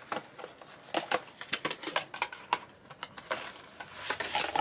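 Small white cardboard box being opened by hand: crinkling and rustling of the box and its contents, with many irregular light clicks and taps.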